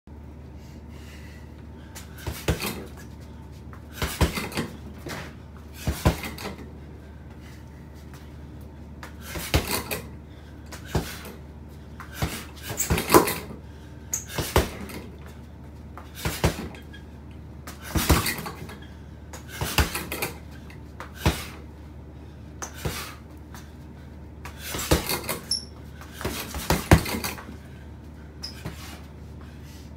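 Punches landing on an 80 lb Everlast heavy bag in quick combinations of two to four blows, a new combination every second or two. The bag's metal hanging hook clinks as the bag is struck and swings.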